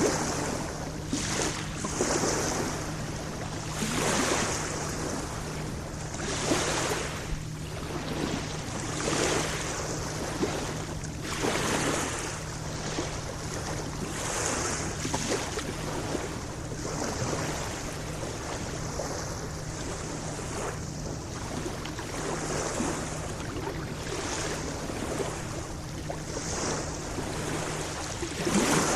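Small lake waves washing and splashing against the shore, a fresh swell of water every two to three seconds.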